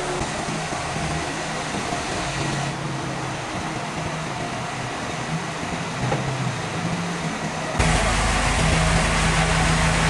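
Sawmill machinery running with a steady hum. About eight seconds in it switches abruptly to a louder, fuller machine sound.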